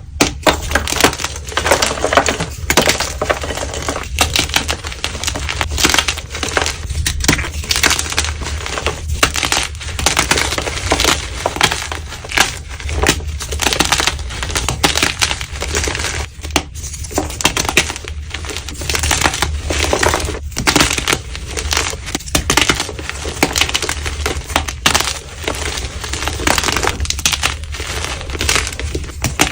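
Blocks of dyed gym chalk being crushed, a dense, continuous crunching and crumbling with many small cracks.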